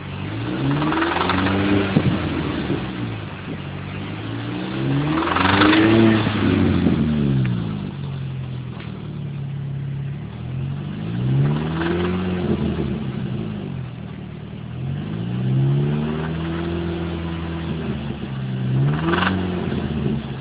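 Mini Cooper S R53's supercharged 1.6-litre four-cylinder engine being revved and let fall back about five times, its pitch rising and dropping each time. It is recorded to show a loud engine knock.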